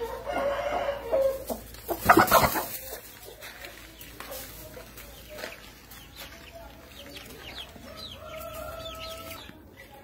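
White Aseel chickens calling: an adult clucks and calls, with a loud harsh call about two seconds in. Short, high, falling peeps from the chicks follow through the second half.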